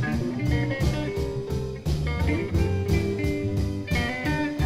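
Electric Chicago blues band playing between sung lines: electric guitar phrases over bass and a steady drum beat.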